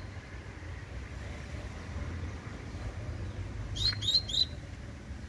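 A young double-collared seedeater (coleiro) singing a short phrase of three quick rising 'tui' notes about four seconds in, the tui-tui song type.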